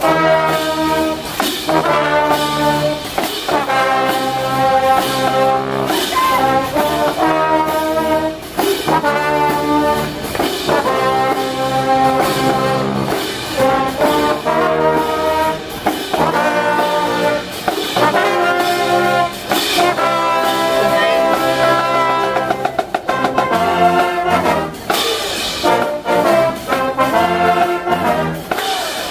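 Marching pep band brass of trombones, trumpets and a sousaphone playing a tune, in phrases with short breaks between them.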